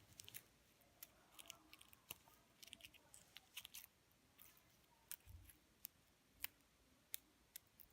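Faint, scattered crinkling and crackling of the foil wrapper being peeled off a Kinder Surprise chocolate egg, in irregular small clicks.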